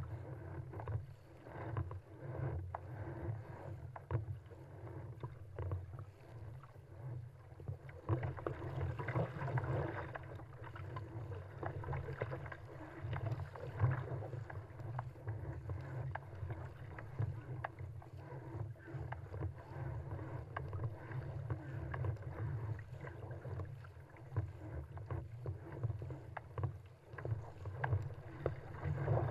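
Choppy sea water rushing and splashing along a surfski's hull as it runs downwind, with frequent irregular splashes from paddle strokes and chop over a steady low rumble.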